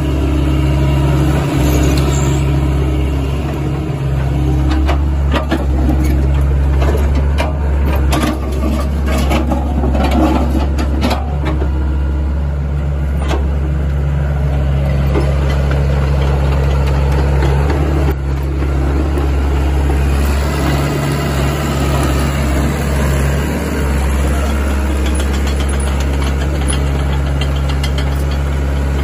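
Sany SY75C excavator's diesel engine running steadily while the arm and bucket are worked, with scattered sharp knocks and clanks through the middle of the stretch.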